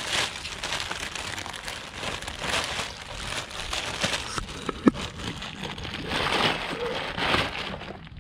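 Plastic bag and bubble wrap crinkling and rustling in irregular bursts as an alternator is unwrapped by hand, with one sharp snap a little under five seconds in.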